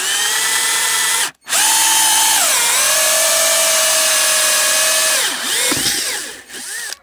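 Cordless drill spinning a parking-sensor hole cutter through a car bumper: a steady motor whine that cuts out briefly about a second in, restarts, drops a little in pitch, then winds down near the end.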